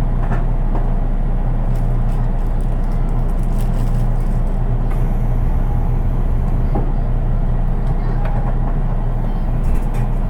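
Steady low hum and rumble inside a JR East 183 Series electric train car, with a few faint clicks.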